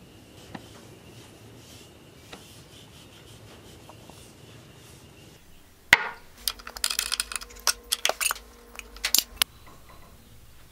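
A metal quart can of Minwax Helmsman spar urethane is set down on a wooden bench with one sharp knock, then its lid is worked open with a screwdriver: a quick run of metallic clicks and clanks, with the can ringing under them. Before that there are only a few faint ticks and a faint steady high tone.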